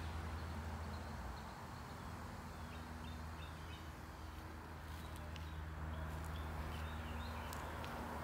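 Outdoor ambience: a steady low mechanical hum throughout, with faint bird chirps through the middle.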